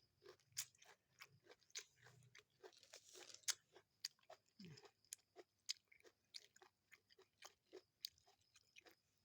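Faint close-up eating sounds: a person chewing and crunching food, with many short, crisp mouth clicks and smacks at an irregular pace. A brief low vocal sound falls in pitch about halfway through.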